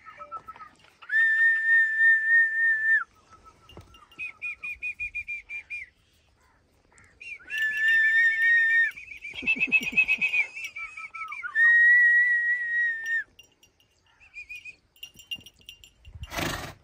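High-pitched whistling in repeated phrases: steady notes about two seconds long, quick runs of short repeated notes and brief lower notes, with pauses between phrases. A short hissing burst sounds near the end.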